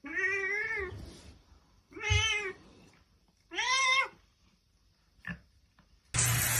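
Domestic cat meowing three times, each a drawn-out arched call, with a short faint one after. A loud, steady hissing noise with a low hum cuts in near the end.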